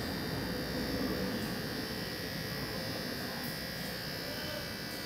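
A steady machine hum and buzz with a thin, high, unchanging whine over it.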